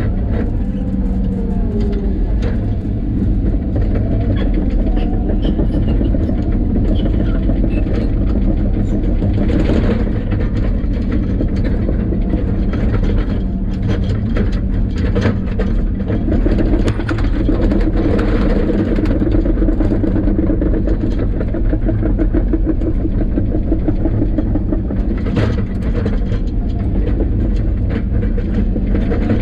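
Engine of a tracked earthmoving machine running steadily under work, with frequent metallic clanks and rattles from the machine.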